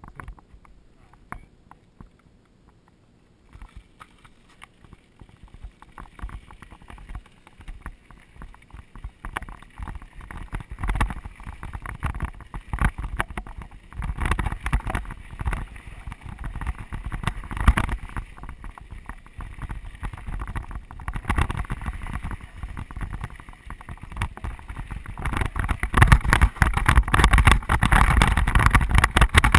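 Mountain bike rolling over a rocky dirt trail: tyres crunching on gravel while the chain and frame rattle over bumps. It starts quiet and gets louder as the ride picks up speed, loudest near the end.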